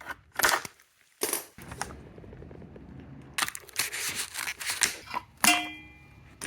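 Packaging rustling and tearing in several short bursts as the pack of cart hardware is opened, with a brief metallic ring about five and a half seconds in.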